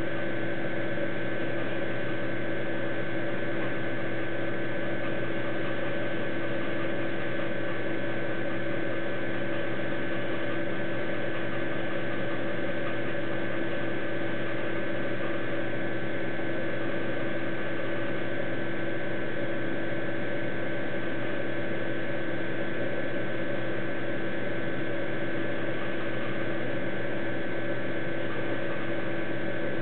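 Steady hum with hiss and several fixed tones, unchanging throughout.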